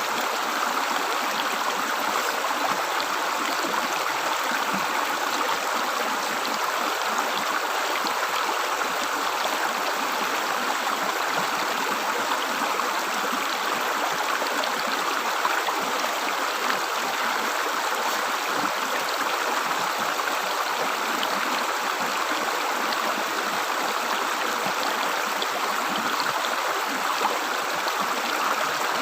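River water gurgling steadily as it flows.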